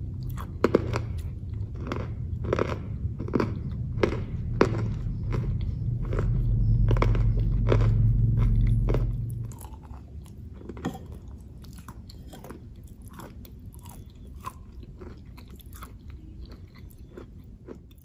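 Close-miked chewing of a pastry coated in chocolate spread, with many sharp crunches. A low rumble underneath drops away a little past halfway, and the chewing continues more quietly after that.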